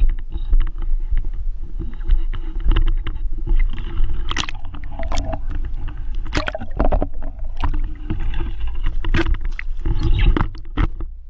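Low wind and handling rumble on the microphone, with many sharp clicks and knocks, and pond water splashing close by near the end.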